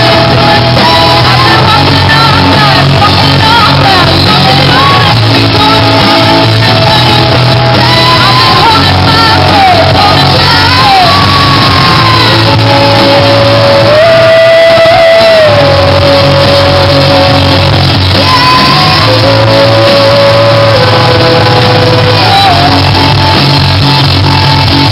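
Live rock band playing loudly through a stage PA: a woman singing lead in long held lines over electric guitars, keyboard and drums, the low end dropping out briefly about halfway through.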